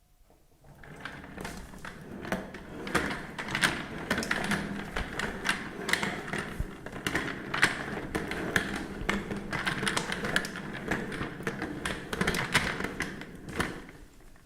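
A chair creaking and clicking: a dense, irregular run of creaks, clicks and light knocks that builds up about a second in and fades out near the end.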